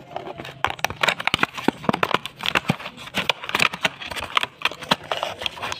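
Clear plastic lure box and its wrapping being opened by hand: irregular crinkling of plastic with many sharp clicks and snaps.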